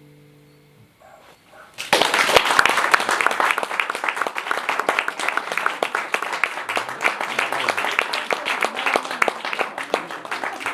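The final chord of a classical guitar rings out and fades, then an audience bursts into applause about two seconds in, clapping steadily to the end.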